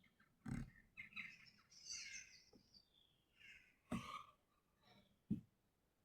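Faint bird chirps in the background, broken by three soft low thumps.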